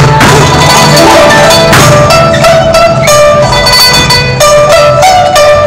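Music: quick runs of bright, ringing notes on a Chinese zither, over a low bass layer, with sharp percussion hits at the start and about two seconds in.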